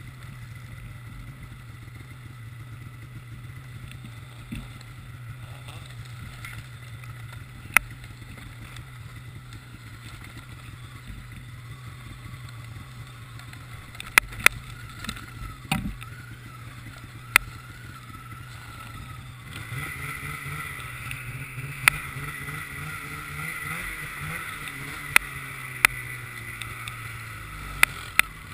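Polaris snowmobile engine running, heard on board while riding a snowy trail, with a handful of sharp clicks and knocks. About two-thirds of the way in the engine gets louder and its pitch rises and falls as the throttle is worked.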